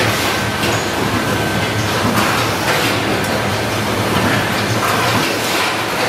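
Automatic switch assembly machines running: a continuous mechanical clatter of irregular clicks and knocks over a steady hum.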